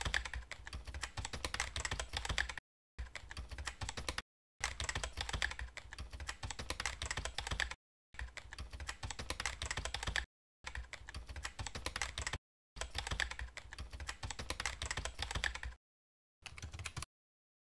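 Computer keyboard typing sound effect: rapid key clicks in seven runs of roughly half a second to three seconds each, broken by short gaps of dead silence.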